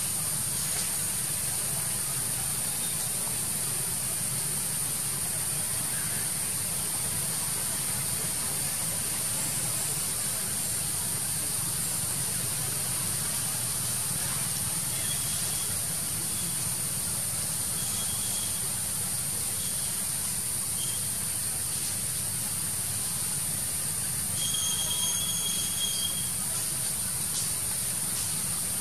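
Steady high-pitched drone of insects in tropical woodland over a low steady hum, with a few brief high whistle-like tones, the plainest near the end.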